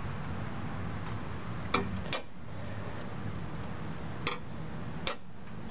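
A few short, light clicks and clinks from the removed Briggs & Stratton 825 Series OHV cylinder head being handled, four in all, over a faint steady low hum.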